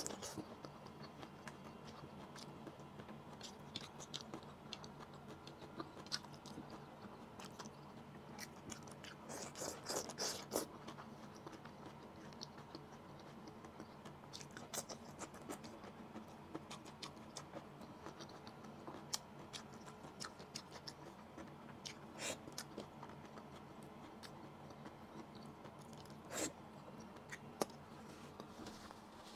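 Close-miked mouth sounds of a person chewing and eating long beans and vegetables from pinakbet: irregular small clicks and smacks, with a denser run about ten seconds in.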